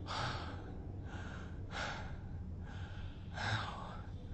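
A man breathing heavily through an open mouth in ragged gasps, about one a second, the strongest near the end, over a low steady hum.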